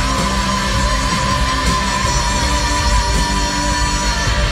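Loud live band music from a pop-country concert, recorded from among the arena audience, with a long held note over a steady low end.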